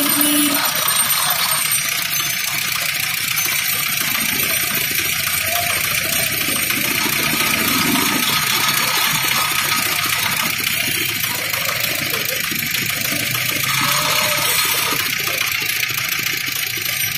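A belt-driven sugarcane juice roller press running steadily while cane stalks are fed through and crushed between its steel rollers, with juice running off into a jug.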